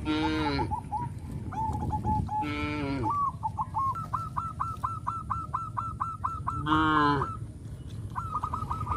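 Animal calls: three short, high calls that each fall in pitch, near the start, about two and a half seconds in and about seven seconds in, with a fast run of short, high chirps, about five a second, through the middle.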